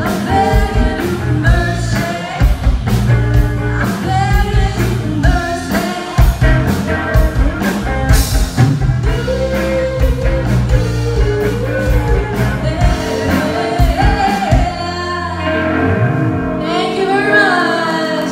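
A female vocalist singing live into a microphone, backed by a band with electric guitar and drums. The drums keep a steady beat through the first half, then drop away, leaving her voice over held chords and ending on a long, wavering note.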